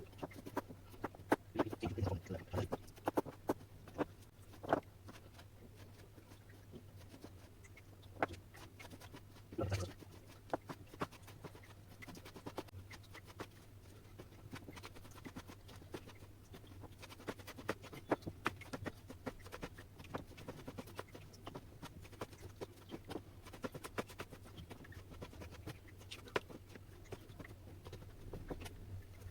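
Kitchen handling sounds during food preparation: irregular taps and clicks of utensils, busiest in the first ten seconds, over a steady low hum.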